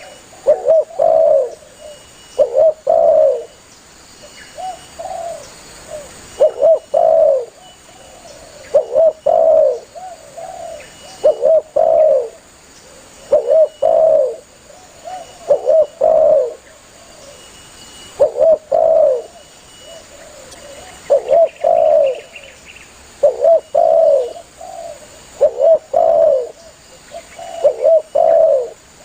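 Spotted dove (tekukur) cooing over and over, a low phrase of several notes about every two seconds, with fainter coos between: the bird calling to others of its kind.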